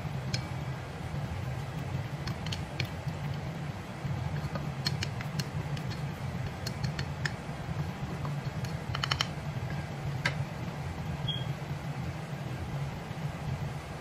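Two wooden spatulas scraping and knocking against a steel wok while meat and bell peppers are stir-fried, with sharp clicks scattered through, a quick run of them about nine seconds in. The clicks stop a few seconds before the end, leaving a steady low hum.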